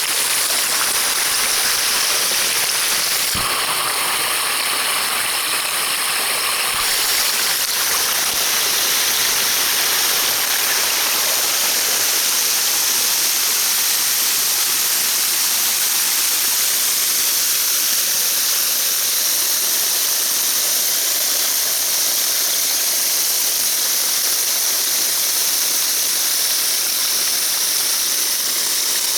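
Water pouring steadily from a waterfall shower, a continuous hissing spray. A knock comes about three seconds in, and the spray sounds different for a few seconds after it.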